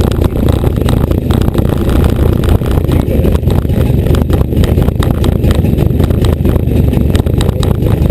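Small two-stroke moped engine idling steadily while warming up, running smoothly with no pinging or knocking.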